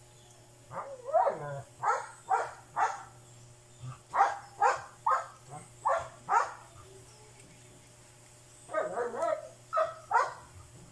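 A dog barking in three bouts of quick, short barks with pauses between.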